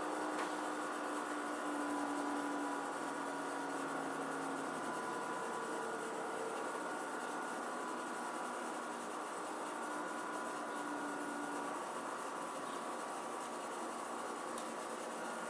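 Samsung AW05B5171TWA window air conditioner running: a steady hiss of airflow with faint steady hum and whine tones under it. This is the constant machine noise the owner says makes the unit far from quiet.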